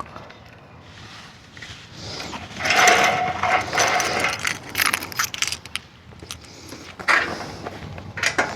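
Handling noise: rustling and scraping with scattered small clicks, as gear is handled close to the microphone. The busiest stretch runs from about two and a half to four and a half seconds in.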